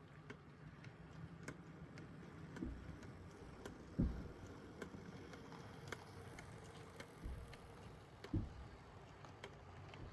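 Rivarossi HO-scale 4-6-4 Hudson model locomotive running slowly, a faint steady motor hum with irregular clicking from its eccentric valve gear and a few louder knocks, about four and eight seconds in. The owner says the eccentric clicking is common with these engines and he cannot get it to stop.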